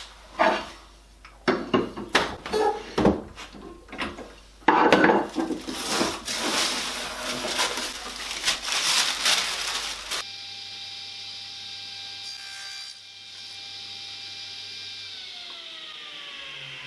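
Power saw cutting a wooden panel to size. The first few seconds hold knocks of the board being handled, then the saw cuts with a loud rasping noise. After a break, a steady motor whine runs on and falls in pitch as the saw winds down.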